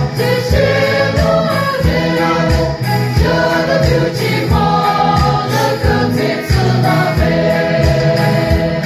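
Mixed choir singing a Christian hymn in harmony, over a steady low beat of about two thuds a second.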